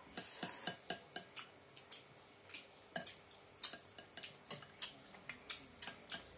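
Metal spoons and forks clinking and scraping against ceramic and glass bowls as noodle soup is eaten, a series of irregular light clicks, with a short slurp of noodles near the start.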